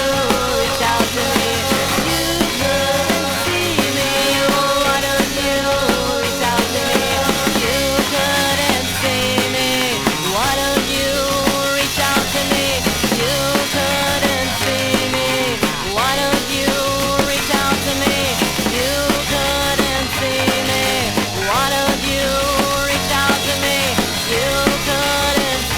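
Lo-fi alternative garage-punk rock band playing an instrumental passage with drum kit, bass and guitar, heard from a 7-inch vinyl record. The pitched lines repeatedly bend up and down over a steady beat.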